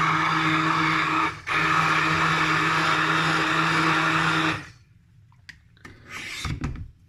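Electrolux Pamix hand blender running in a tall container, blending fruit and berries into a smoothie: a steady motor hum that cuts out briefly about a second and a half in, starts again, and stops suddenly a few seconds later. After it, quieter handling sounds with a soft thump near the end.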